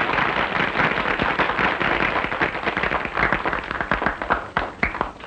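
Crowd applauding, a dense patter of many hands clapping that thins out near the end into a few separate claps.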